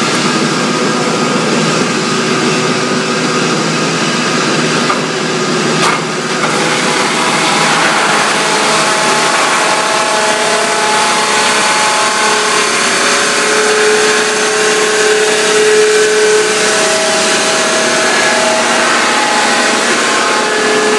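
110 kW electric sawdust-making machine running while it crushes a wood log into sawdust: a loud, steady grinding noise with a few held tones that shift in pitch, and a sharp click about six seconds in.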